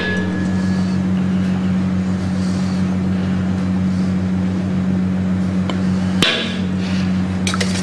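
Steady low hum throughout, with a metal spoon clicking sharply once against a stainless steel mixing bowl about six seconds in and a few fainter spoon taps around it.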